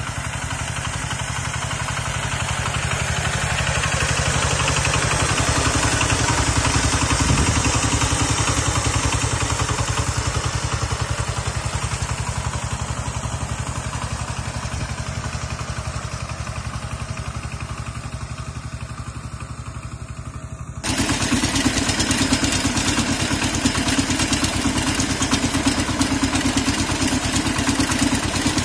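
Heavy diesel walk-behind tractor (Kentavr MB 1010DE-6, single-cylinder diesel) running steadily while towing a loaded trailer. It grows louder over the first few seconds and slowly fades as it passes. About 21 seconds in the sound changes abruptly to the same engine heard close up from on the machine: louder, with a fast, even diesel beat.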